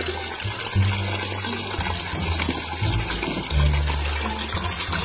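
Tap water pouring into a plastic basin and splashing as a whole sea bass is rinsed by hand, over background music with a heavy bass line.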